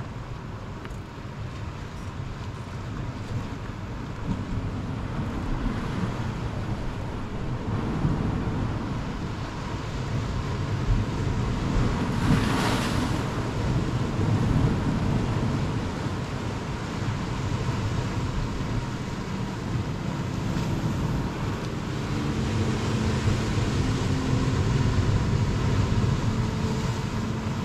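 Ocean surf washing over rock ledges, with wind buffeting the microphone. The wash rises and falls, and one wave surges up loudly about twelve seconds in.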